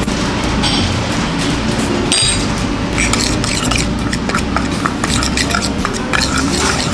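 Kitchen utensils clinking and scraping against dishes. A few isolated clinks come first, then a quick run of clicks and clinks from about three seconds in.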